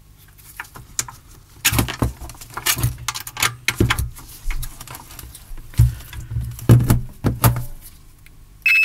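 Small parts and test leads being handled: irregular clicks, rattles and rustling. Near the end, a steady high multimeter continuity beep starts, the sign that the two probed contacts are shorted together.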